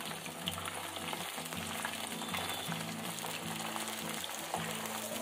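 Raw colocasia (taro root) sticks deep-frying in hot oil, still pale early in the fry: a steady sizzle with scattered crackles. A metal slotted spoon stirs them in the pan.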